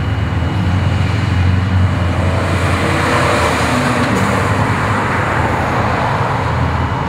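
Road traffic noise with a 1988 Porsche 944 driving past close by, its 2.5-litre four-cylinder engine and tyre noise strongest around the middle, over a steady low rumble of other passing cars.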